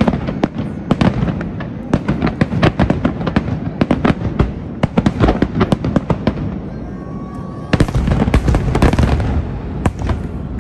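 Aerial fireworks shells bursting in a rapid series of sharp bangs. The bangs thin out about six seconds in, then a dense, loud volley of bursts follows near the end.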